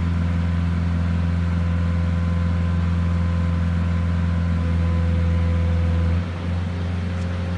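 Engine driving the hydraulic cranes of a side loading trailer, running with a steady low hum as the crane arms fold in. About six seconds in the hum drops slightly in level.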